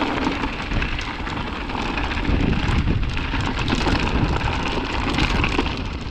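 Mountain bike running fast down a dirt trail: a steady rush of wind and tyre noise, with many small knocks and rattles from the bike going over roots and rocks.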